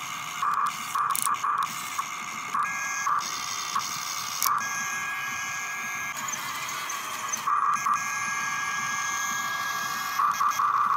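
Electric motors and gearboxes of a toy radio-controlled excavator whining as it drives its tracks and blade through dirt. The whine comes in short stop-start spurts, with a longer steady run in the middle.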